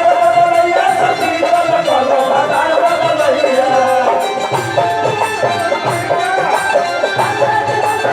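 Instrumental passage of a Bhojpuri folk song: a melody instrument playing over percussion that keeps a steady beat.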